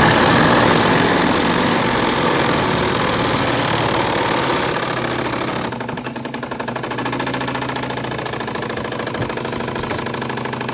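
Ryobi P290 Quiet Strike oil-impulse driver, on an 18 V 9 Ah battery, driving a large lag screw into a 4x4. A steady run at first; about six seconds in it changes to a rapid, even pulsing as the impulse mechanism works against the lag's resistance, and the lag screw is no longer moving.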